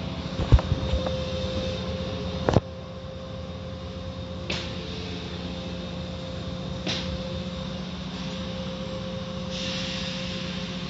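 Automatic tunnel car wash heard from inside the car: a steady machinery hum, with cloth brush strips thudding against the car twice in the first few seconds. Softer swishes follow, then a burst of spray hiss near the end.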